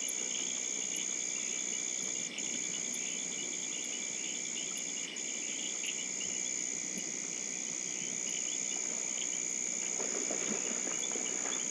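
Forest insect chorus: a steady high-pitched insect drone with pulsing trills beneath it and short, higher chirps about once a second. The drone drops out briefly twice.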